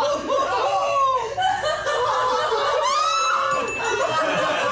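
Several people laughing and snickering together, with a high-pitched squeal of laughter about three seconds in.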